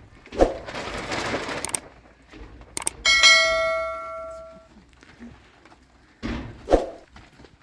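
A piece of metal cookware is struck once, about three seconds in, and rings with a clear bell-like tone that fades over about a second and a half. Rustling handling noise and two knocks come before and after it.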